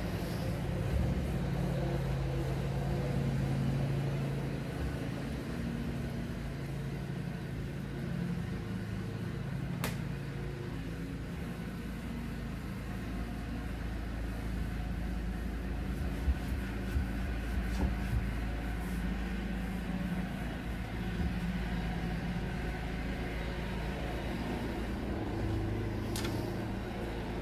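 A steady low hum, with light taps and clicks as gloved hands wipe and handle wooden kitchen cabinet doors; one sharp click about ten seconds in.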